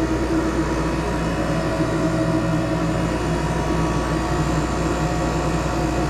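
A 12-volt DC self-contained marine air conditioner, a 5,000 BTU cool-only unit, running: compressor and fans make a steady hum, with several held tones over an airy hiss.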